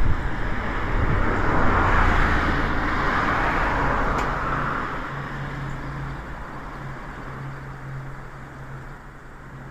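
A road vehicle passing by: a swell of traffic noise that peaks about two seconds in and then fades away, leaving a steady low hum.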